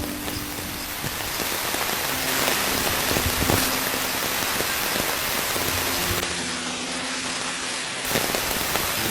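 Steady rain falling, an even hiss of drops throughout, with a few faint low held tones underneath and a single sharper knock about three and a half seconds in.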